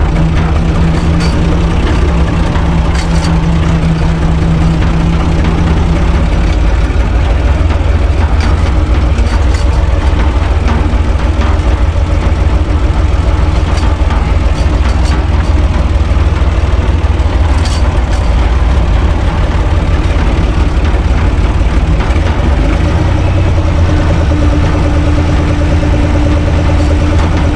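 UTB 445 tractor's diesel engine running steadily while driving along the road, heard loud from inside the cab.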